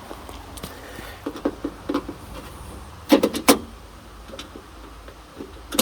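Clicks and knocks of a car door latch assembly being worked back into a 1954 DeSoto's door: a run of light clicks, then two loud sharp knocks about three seconds in, and another knock near the end.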